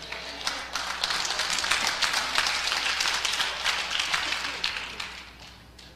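Church congregation applauding. The applause builds over the first second and dies away over the last second or two.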